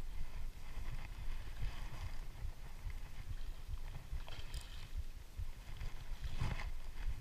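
Gusty low rumble of wind on the microphone, with two brief scuffs about four and a half and six and a half seconds in.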